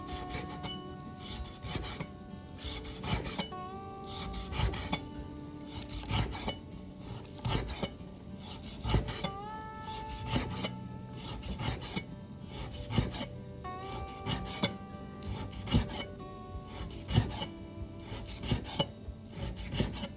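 A spatula scraping and knocking against a pan in irregular strokes while food is stir-fried, over background music.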